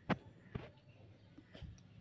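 Mostly quiet, with two faint knocks about half a second apart near the start and a few softer ticks later.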